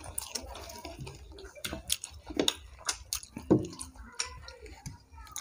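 Two people eating rice and curry by hand: chewing and mouth smacks with scattered short clicks.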